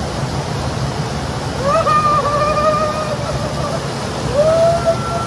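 Steady rushing of river water. Over it come two long held high-pitched notes: one about a second and a half in, and another that slides up and holds near the end.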